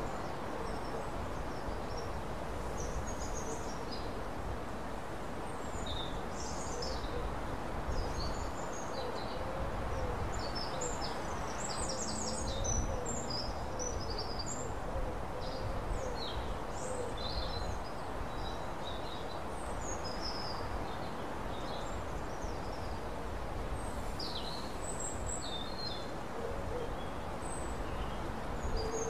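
Outdoor birdsong in trees: small birds chirping and twittering high up over a steady background rush, with a low, wavering call repeated over and over from about eight to eighteen seconds in.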